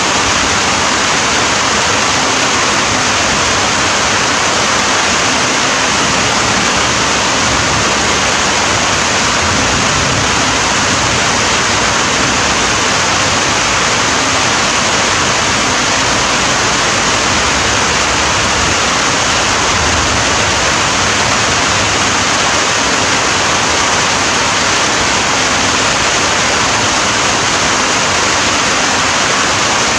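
Steady, even rain hiss with no single drops or thunder standing out.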